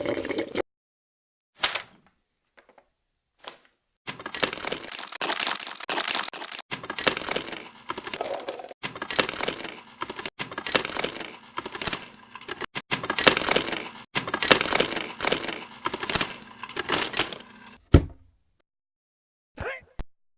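A string of cut-together foley sound effects: a few short noises, then a long stretch of crackling, cracking noise that ends in a sharp thump.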